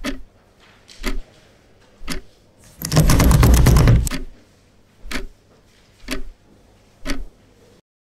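A sharp tick-like knock repeats about once a second, steady like a clock. About three seconds in, a door's lever handle and lock rattle loudly for about a second.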